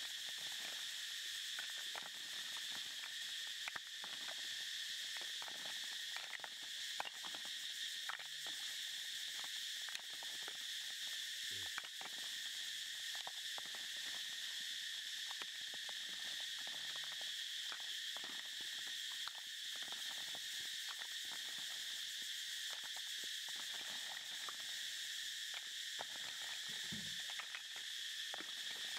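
A steady, high-pitched insect chorus, with scattered faint clicks and ticks.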